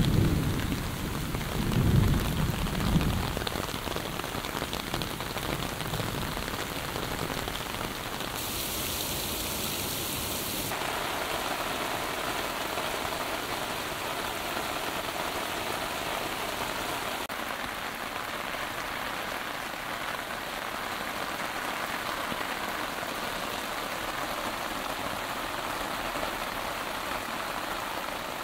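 Heavy monsoon rain pouring steadily onto broad banana leaves and later onto a flooded road running with muddy water. A low rumble of thunder fades out in the first three seconds.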